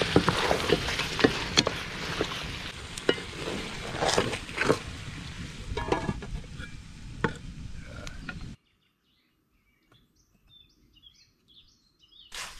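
Food sizzling and crackling as it cooks, with many sharp pops; it cuts off suddenly about eight and a half seconds in, leaving faint bird chirps.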